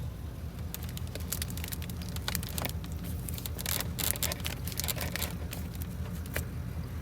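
Irregular crinkling and clicking from a flexible foil dryer-vent hose and tape being handled as the hose is taped into an air vent, over a steady low hum from the vehicle.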